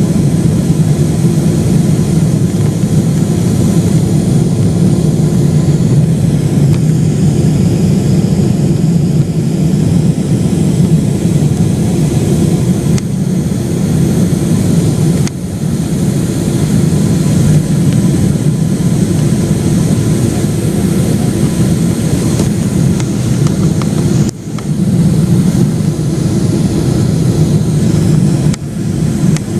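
Boeing 777-300ER airliner's jet engines and airflow heard as loud, steady low rumble during the landing approach, with a few brief dips in level.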